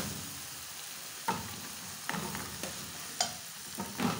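Noodles being stirred into a sizzling pepper-and-tomato sauce in a stainless steel pot with a slotted spoon: a steady sizzle with about five sharp knocks of the spoon against the pot.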